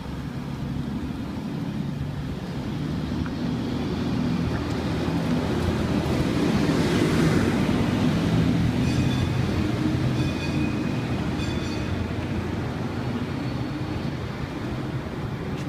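A heavy vehicle's engine running with a low steady hum amid street noise, growing louder to a peak about halfway through and then fading.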